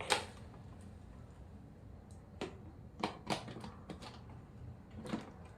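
Plastic clicks and taps as parts of a new steam mop are snapped into place: one sharp click at the start, then a few lighter clicks around two to three seconds in and again near the end.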